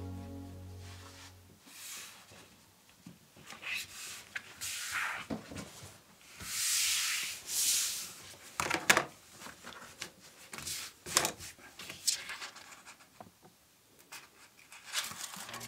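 Hands working lampshade materials: intermittent rubbing and scraping, a longer rasping rub about six to eight seconds in, and a few sharp clicks and taps.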